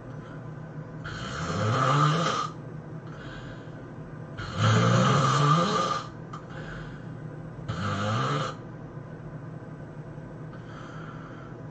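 A person snoring during sleep: three loud snores about three seconds apart, each rising in pitch, with softer breaths between them.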